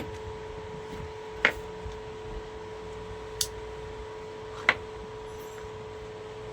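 Steady electrical hum with three short, sharp clicks of small tools being handled during a smart watch repair.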